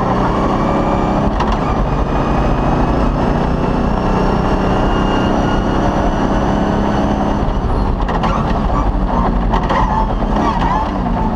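Cross-country rally car's engine running hard at steady high revs, heard from inside the cabin. About eight seconds in the steady note breaks off and a few sharp knocks follow.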